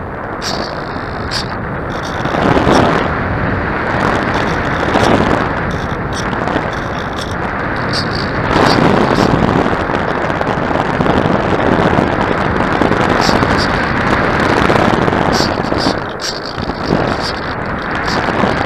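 Wind buffeting the microphone: a loud rushing noise that swells and eases in gusts.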